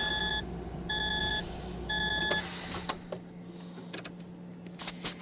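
Truck cab's electronic warning beeper sounding three times, about once a second, with each beep a steady tone lasting about half a second. Then comes a brief rustle and a few light clicks over a faint steady hum.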